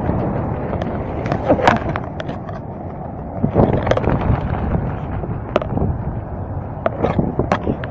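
Wind buffeting a phone's microphone in a steady low rumble, with about seven sharp knocks and clicks from the phone being handled.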